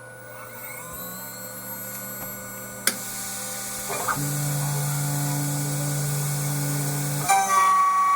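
CNC milling machine starting a rough pass with a 12 mm flat end mill: a steady machine whine, a click about three seconds in followed by a high hiss, a steady low hum from about four to seven seconds, then a louder, higher whine with several tones near the end.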